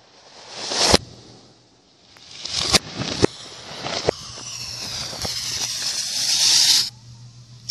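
Fireworks played backwards: reversed bangs that swell up and cut off sharply, once about a second in and twice around three seconds. Then a ground fountain firework's hissing crackle swells for about three seconds, with whistling tones that fall in pitch, and stops abruptly near the end.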